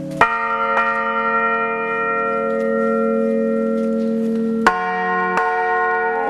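A church bell struck by hand with a wooden mallet: two strikes close together near the start and two more about four and five seconds in. Each strike leaves a long, steady ring made of several tones.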